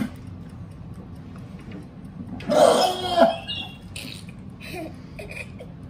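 A man retching over a bucket: one harsh, rough heave about two and a half seconds in, with two loud pulses about half a second apart, brought on by an extremely hot gummy bear.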